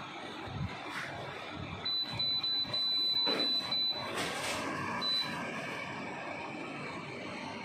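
A high electronic beeping, a rapid run of pulses for about two seconds, then one short beep a second later, over a steady background hum and hiss.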